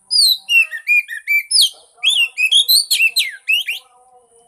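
Oriental magpie-robin singing two quick phrases of loud, varied whistled notes that sweep up and down, with a brief pause between them.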